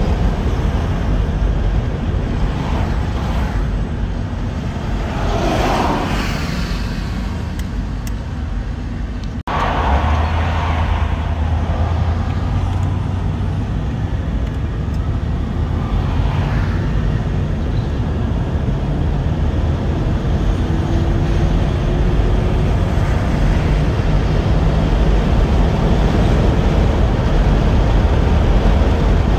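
In-cab sound of a 1984 Chevrolet El Camino SS cruising at highway speed: a steady low engine and road rumble, with two whooshing swells about six and sixteen seconds in. The sound drops out for an instant about nine and a half seconds in.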